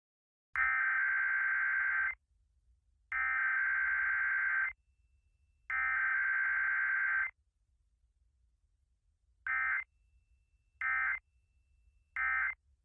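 Emergency Alert System SAME digital data tones, a harsh, buzzing electronic warble. Three long header bursts of about a second and a half each come first, then three short end-of-message bursts a little over a second apart, encoding a Required Weekly Test.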